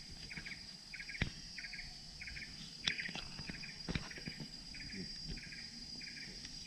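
Tropical rainforest insects: a steady high-pitched drone with a chirping call repeating about every 0.6 seconds. A few sharp crackles from steps on dry leaf litter come through, the loudest of them about three and four seconds in.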